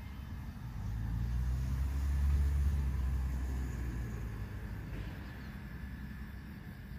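A motor vehicle passing by: a low engine rumble that swells to a peak about two and a half seconds in, then slowly fades.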